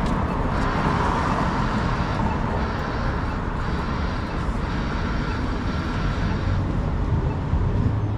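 City street traffic noise at an intersection: a steady mix of car engines and tyres, with a low engine rumble growing stronger near the end.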